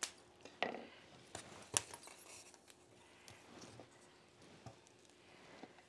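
A few light knocks and clicks from handling in the kitchen, as tomatoes and chiles are set out to roast. The loudest knock comes just under two seconds in.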